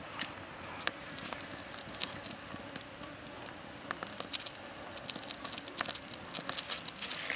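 Open wood fire crackling, with irregular sharp pops and snaps a few times a second over a steady low hiss.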